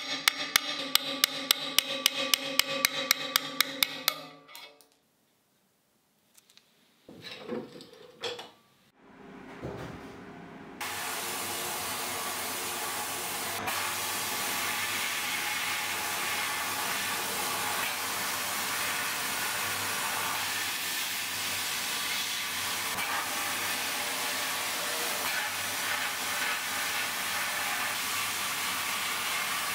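A quick run of sharp metallic taps, about four a second, over a steady hum, then a pause. About ten seconds in, a sandblasting gun in a blast cabinet starts up and runs with a steady loud hiss, blasting rust off a steel cleaver blade.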